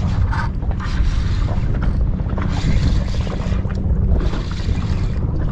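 Wind rumbling on the microphone, with a few bursts of louder hissing noise over it.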